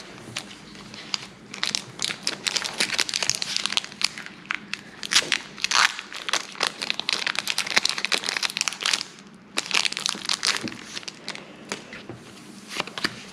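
Foil wrapper of a Pokémon Rebel Clash booster pack crinkling and crackling irregularly in the hands as it is torn open.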